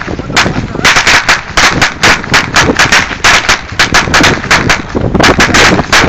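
A huge chain of firecrackers going off: rapid, irregular, very loud bangs several per second, overlapping into a continuous crackle.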